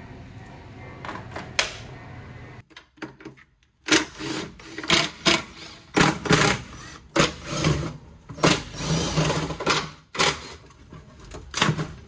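Cordless Ryobi drill/driver spinning in about a dozen short bursts, each under a second, as fasteners on the car's underside are run out. Two faint clicks come before it.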